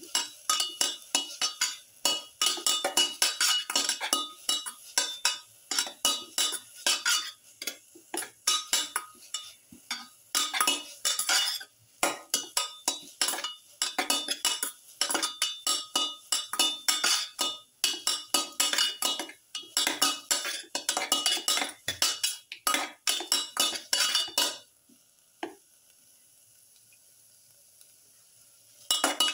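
A utensil stirring onions, garlic and ginger frying in a stainless steel pan: quick, repeated scraping and clinking of metal against the pan. The stirring stops a few seconds before the end, leaving only a faint steady background.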